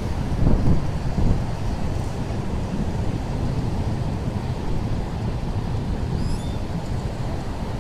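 Wind buffeting the microphone, a steady low rumble with stronger gusts about half a second and a second in, over the wash of breaking surf.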